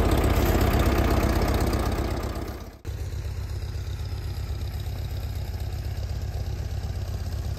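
A Farmall F-20 tractor's four-cylinder engine running at a steady idle. About three seconds in, the sound cuts to another old tractor engine idling with an even pulse.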